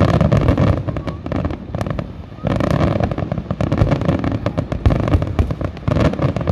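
Fireworks display: a rapid, dense string of aerial shell bursts and crackle. It eases briefly about two seconds in, then picks up again.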